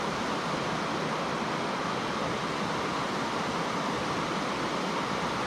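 Steady rushing of flowing river water, an even wash of noise with no distinct splashes.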